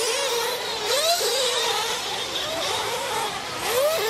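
Nitro RC race trucks' small two-stroke glow engines whining, their pitch sweeping up and down again and again as the drivers accelerate and lift off, with more than one engine heard at times.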